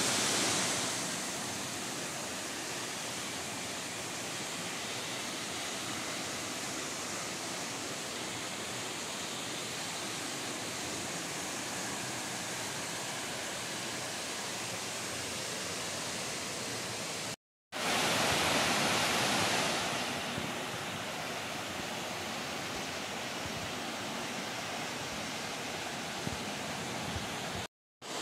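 Waterfall and stream water rushing in a steady, even hiss, broken by two brief silent gaps where the clips are cut together, about 17 and 28 seconds in.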